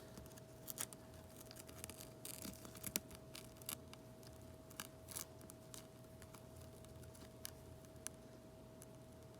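Faint, scattered small clicks and scrapes of hand tools working cracked iPad mini 5 screen glass loose from its frame, over a steady faint hum.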